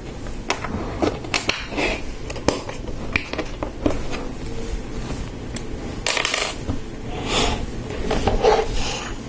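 Lego Technic plastic parts clicking, rattling and scraping as axles and lift arms are handled and pushed together, with irregular sharp clicks and a few short bursts of rummaging.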